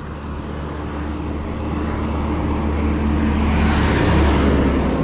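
A Hino bus's diesel engine running steadily as the bus comes up and passes close beside the bicycle. It grows louder to its loudest about four seconds in, over road and wind noise.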